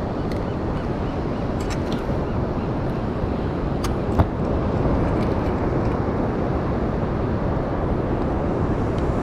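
Steady roar of wind buffeting the microphone over ocean surf, with a few sharp clicks; the loudest click comes about four seconds in.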